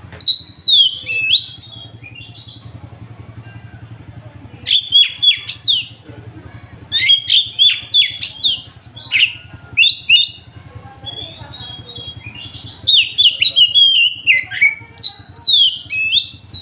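Oriental magpie-robin (kacer) singing loud phrases of rapid, sweeping high notes, in four bursts separated by pauses of a second or two.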